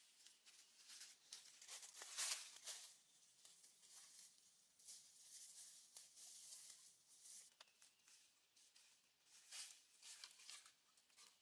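Faint, irregular crunching and rustling of dry leaves and twigs underfoot as someone walks through forest leaf litter, the loudest crunch about two seconds in.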